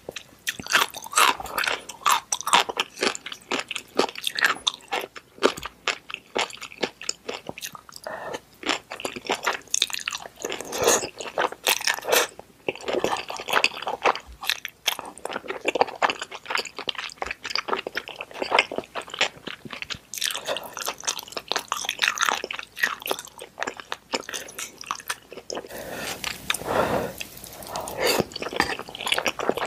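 Close-miked eating of spicy fried noodles and luncheon meat: wet chewing with many mouth clicks and smacks. Near the end, a long slurp of thick udon noodles.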